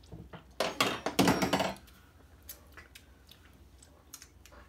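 People tasting hot sauce off metal spoons. A second or so of loud slurping and lip-smacking comes about a second in, followed by scattered small clicks of spoons and mouths.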